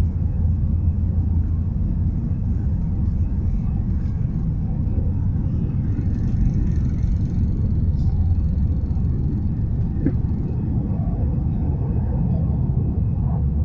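Airbus A320 cabin noise during takeoff: the engines at takeoff thrust make a steady, loud low rumble, heard from inside the cabin over the wing.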